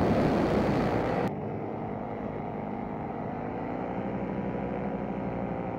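Paramotor engine running steadily in flight, with wind noise. A louder, rougher noise fills the first second or so and cuts off abruptly.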